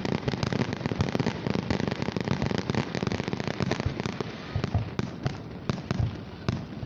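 Aerial fireworks going off in quick succession: a dense string of bangs over steady crackling, thinning a little in the second half.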